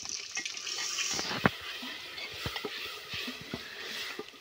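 Water poured into a metal cooking pot on the fire, the pour stopping about a second in, then a few clinks of a metal ladle against the pot.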